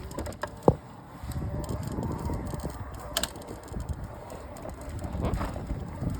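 Cannondale Mavaro Neo 3 e-bike's pedal drivetrain making an odd mechanical clicking as it turns, with a few sharp clicks over a low rumbling noise. The owner suspects it is linked to a problem with the bike's motor.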